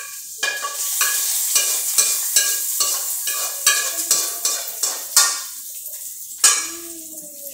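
A utensil scraping around the inside of a metal frying pan in quick strokes, about three a second, while hot annatto oil sizzles as it is strained out of the pan. The scraping thins out about five seconds in, with one last sharp scrape near the end.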